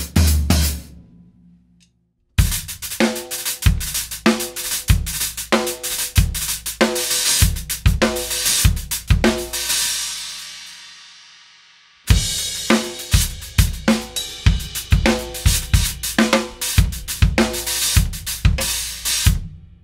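Drum kit played in two short grooves of hi-hat, snare and bass drum, with hi-hat tops over a 14-inch hi-hat bottom being compared. The first groove starts about two seconds in and ends on a cymbal left ringing and fading for about two seconds. The second starts suddenly about twelve seconds in and stops just before the end.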